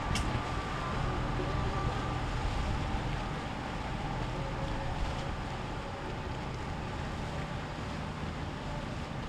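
Steady drone of boat engines on the water, mixed with wind noise on the microphone.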